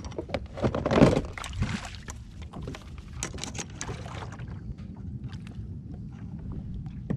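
Water slapping and sloshing against a fishing kayak's hull, with scattered clicks and knocks of rod, reel and gear being handled while a hooked fish is brought alongside. A louder rush of splashing noise comes about a second in.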